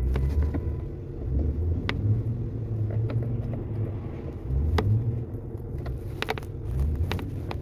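A few light clicks and ticks as a stubby screwdriver tightens a bolt on the heater control lever linkage under a car's dashboard, over a steady low rumble.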